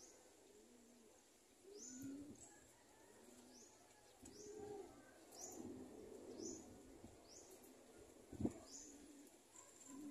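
Domestic pigeons cooing softly, several low coos in short groups, with a faint high chirp repeating about once a second. A single short thump about eight seconds in.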